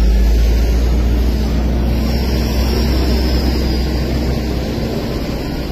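Steady low rumble of a Volkswagen sedan's engine idling close by, with a faint steady hum over it.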